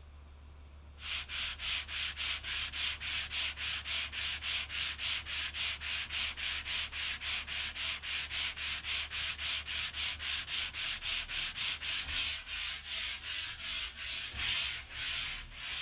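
Sandpaper on a hand-held sanding block rubbed back and forth along a wooden board: a scratchy rasping that starts about a second in and pulses evenly, about three strokes a second, then grows louder briefly and stops near the end.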